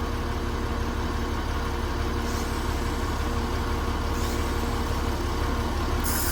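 Rice mill boiler-plant machinery running steadily: a constant low drone with a steady hum over it. A brief hiss comes in near the end.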